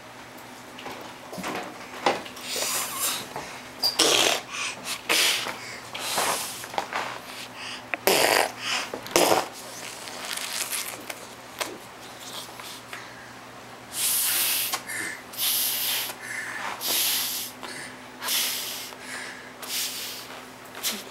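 A toddler blowing her nose into a tissue over and over, a string of short breathy blows. Near the end comes a run of about six strong blows, roughly one a second.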